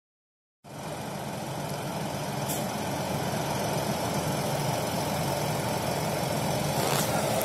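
Fendt tractor's diesel engine idling steadily.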